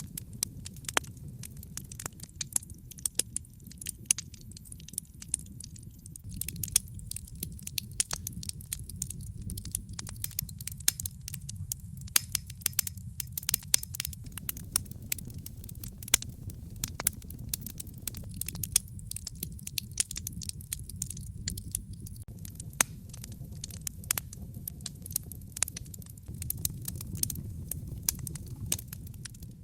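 Wood fire in a fireplace crackling, with frequent sharp irregular pops over a steady low rumble of the flames.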